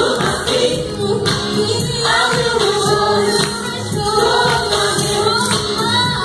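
Live gospel worship music: a vocal group singing in harmony over a band, with a steady beat of percussion hits.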